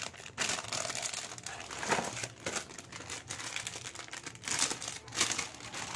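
Plastic packaging crinkling and rustling as it is handled, in irregular bursts, loudest about two, four and a half and five seconds in.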